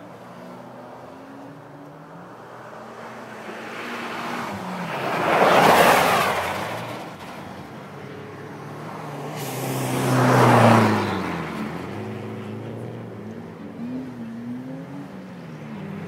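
Two race cars, a Mitsubishi Lancer Evolution X and a Renault 11, driven hard on ice with engines revving up and down. They pass close one after the other, about six seconds in and again about ten and a half seconds in, each pass swelling loud and then fading, the second with a falling engine pitch.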